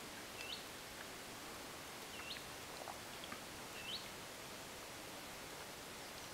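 Occasional raindrops falling from trees into a still bog pool, each landing with a short rising plink: three clear ones, about half a second in, a little past two seconds and near four seconds, with a few fainter ticks between. A faint steady hiss of background noise lies underneath.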